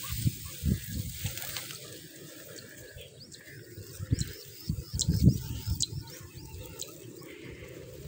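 Small birds chirping in short, high, quick calls, thickest around the middle, over irregular low rumbling gusts on the microphone.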